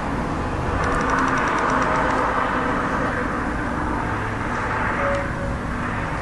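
Steady outdoor background rumble with no distinct event, swelling slightly a second or two in, with a quick run of faint ticks about a second in.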